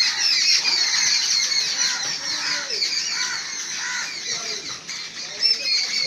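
Crows calling as they mob a perched owl, over a constant dense high twittering of birds, with a run of short repeated calls from about two to four seconds in.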